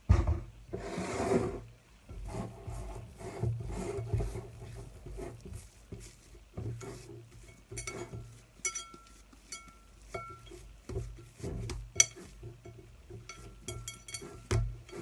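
Hands working soft, sticky risen brioche dough, rubbing and pressing it, with scattered soft knocks and clicks against the bowl and work surface.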